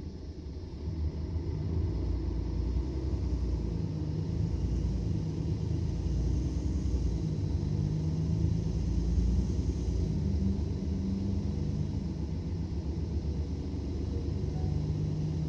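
Mercedes-Benz Citaro O530 city bus's diesel engine and drivetrain, heard from inside the bus as a low, steady rumble. It grows louder about a second in, and a humming engine note comes and goes on top of it.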